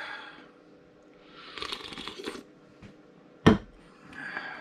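Handling noises on a workbench: two spells of rustling and one sharp knock about three and a half seconds in, the loudest sound.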